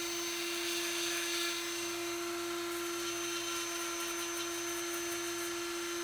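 Dremel rotary tool driven through a flexible shaft, running at a steady speed with one unchanging whine, as its fine diamond tip grinds grime from around the rivets of a copper pan to prepare it for re-tinning.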